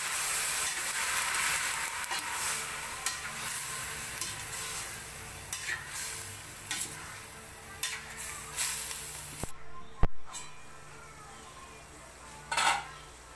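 Raw chopped meat sizzling in a stainless steel pot while a metal spoon stirs it, scraping and tapping against the pot; the sizzle fades over the first nine seconds. About ten seconds in comes a single sharp clack, the loudest sound, and a short clink near the end.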